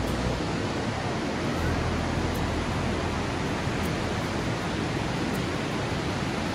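Steady rushing of Burney Falls, a continuous even roar of falling water with no breaks.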